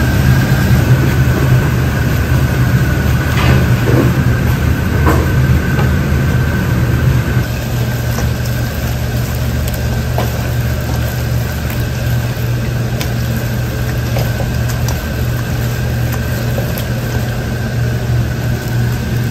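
Steady low mechanical hum with a constant high whine above it, dropping slightly about seven seconds in. A few light taps of hands and food against stainless-steel pans.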